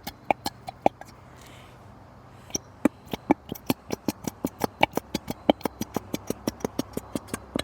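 Plastic glue bottle being squeezed hard to force out the last of the glue, sputtering out a rapid run of sharp pops and clicks, about five a second. A few clicks come first, then a short pause before the steady run.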